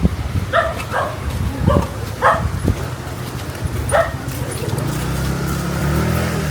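A dog barking in several short barks, spread over the first four seconds. A motor vehicle's engine rumble builds up near the end.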